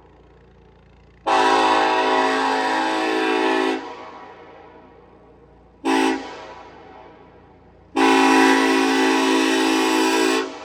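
Nathan Airchime K5LLA hybrid five-chime train horn sounding a chord in three blasts: one of about two and a half seconds, a short toot, then another long blast. Each blast cuts off sharply and trails away in an echo.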